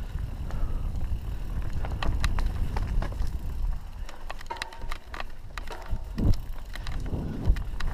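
Mountain bike riding down a dirt forest singletrack: a rumble of wind on the microphone and tyres on dirt, with the bike rattling and clicking over roots and rocks. A brief squeal comes about halfway through, and two sharp knocks come in the second half.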